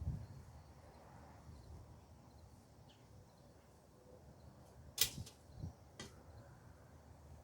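Two sharp knocks about a second apart, with a smaller one between them, over a faint low rumble.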